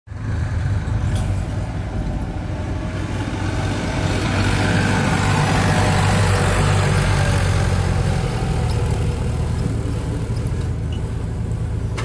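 Diesel engines running: a Massey Ferguson 241 DI tractor drives close past, loudest about halfway through, over the steady running of a JCB 3DX backhoe loader working.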